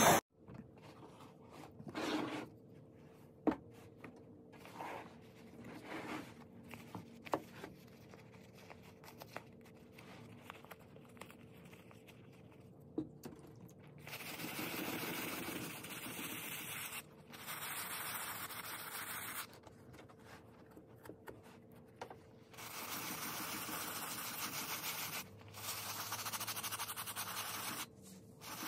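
Stiff plastic-bristle scrub brush rubbing briskly over a handbag's woven fabric, in several runs of scratchy strokes a few seconds each. Before that come scattered light taps and handling knocks.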